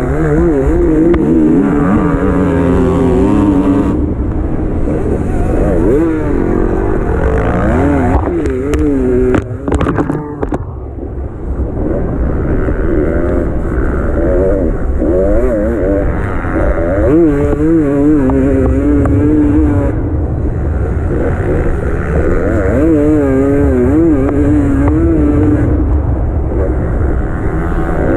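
Enduro motorcycle engine at race pace, revving up and down as the rider works the throttle through the turns of a dirt track. About nine to ten seconds in there is a short run of sharp knocks, then the revs drop briefly before picking up again.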